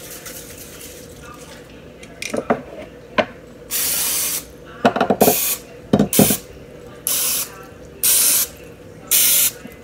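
Aerosol cooking spray hissing in about six short bursts, the first the longest, sprayed over paper cupcake liners in a metal muffin pan, with a few light knocks of the can and pan between the bursts.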